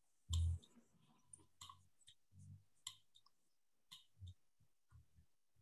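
Light clicks and soft taps of a stylus writing on a tablet screen, irregular and a few per second, with one louder short low thud about half a second in.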